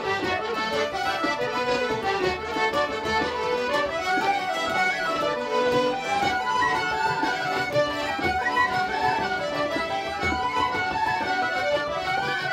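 Irish traditional session music: button accordions and fiddle playing a tune together, with flute, banjo and bodhrán joining in.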